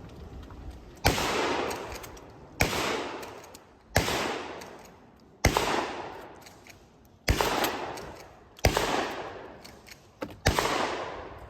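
Shotgun firing seven shots at an even pace, roughly one every one and a half seconds. Each is a sharp report followed by a long fading echo.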